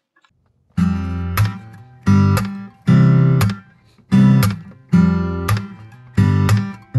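Intro music: an acoustic guitar strumming chords in a steady rhythm, starting about a second in.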